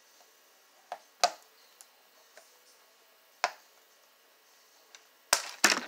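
Scattered sharp clicks and crackles of stiff clear plastic packaging being handled and pried open around a costume machete, with quiet between them. The loudest cluster of clicks comes near the end.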